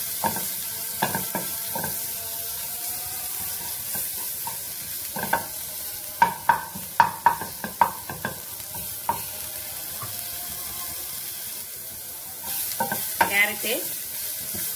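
Sliced onion and green capsicum sizzling in hot oil in a nonstick pan while a wooden spatula stirs and scrapes them, with a run of sharp spatula knocks against the pan about six to eight seconds in.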